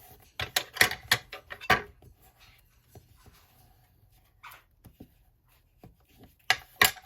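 Paper and card being handled and pressed down: a quick run of short scrapes and taps in the first couple of seconds, a few faint ticks, then more sharp taps near the end.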